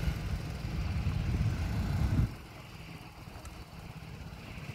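BMW off-road motorcycle's engine running on a rocky descent: a low rumble that drops off abruptly about two seconds in and carries on much quieter.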